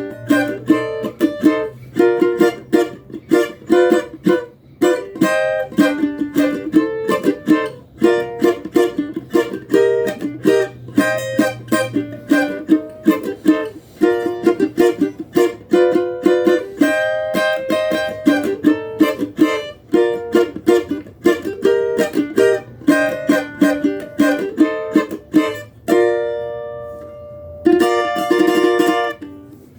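Cavaquinho strummed in quick, rhythmic chords. A little after 26 s a chord is left to ring, and near the end one last chord is struck and rings out.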